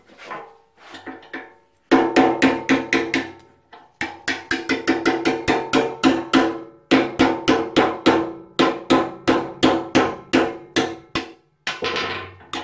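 A ball-peen hammer striking a pin punch against the seized piston of a rusty brake wheel cylinder held in a bench vise. The metal blows ring and come about four a second in three runs with short pauses, starting about two seconds in. The piston is stuck fast in its corroded bore and takes much effort to drive out.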